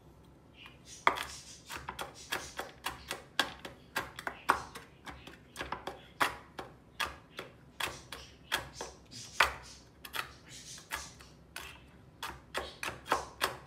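Chef's knife chopping salted roasted almonds on a wooden cutting board: a steady run of sharp knocks of the blade on the wood, about two or three a second, starting about a second in.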